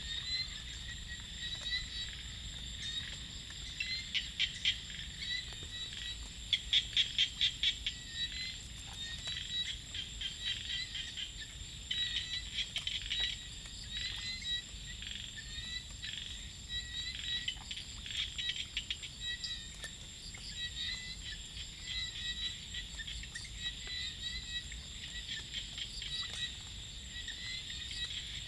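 Rice-paddy chorus of small paddy frogs (khiat) and insects: a steady high insect drone under trains of rapid chirping calls, with louder bursts of fast calls several times in the first two-thirds.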